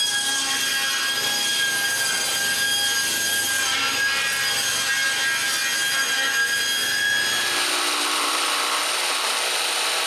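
Table saw running and ripping a long board lengthwise, a steady motor whine under the cutting. About seven and a half seconds in, the sound changes to a hissier, higher cut.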